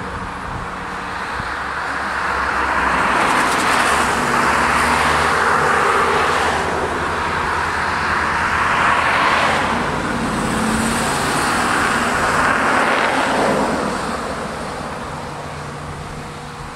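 Road traffic: a run of cars passing, each swelling and fading, with a low engine hum underneath.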